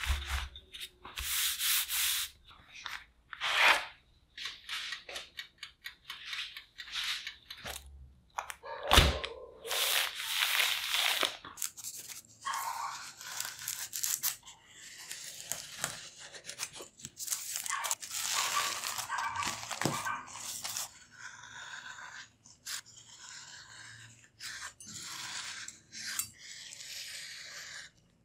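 A chef's knife cutting a baked sheet of shredded potato along a steel ruler on a wooden board: repeated crisp rubbing and crunching strokes, with rustling handling noise and one sharp knock about nine seconds in.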